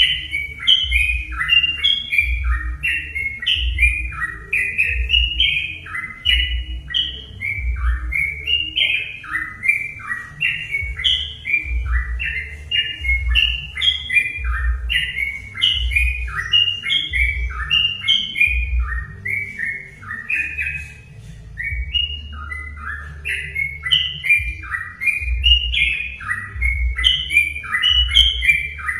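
Yellow-vented bulbuls (trucukan) singing: a dense, unbroken stream of short bubbling, rising and falling whistled phrases, overlapping as from more than one bird. A low, uneven pulsing thud runs underneath.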